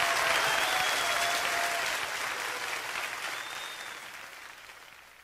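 Live concert audience applauding, the applause fading out steadily to near silence.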